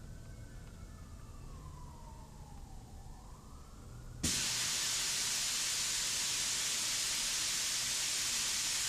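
Faint siren wailing, rising and falling slowly. About four seconds in, a loud steady hiss cuts in suddenly and drowns it out.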